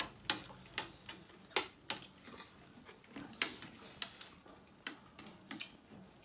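Eating at a table: a dozen or so irregular, sharp clicks and smacks from spoons and forks on plates and from chewing mouths, two of them louder than the rest.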